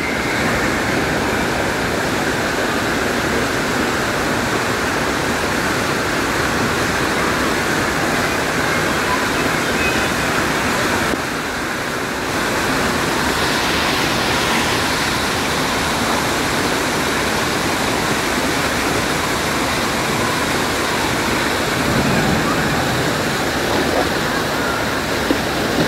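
Artificial rock waterfall pouring into a swimming pool: a steady rush of falling water and churning splash, dipping briefly about eleven seconds in.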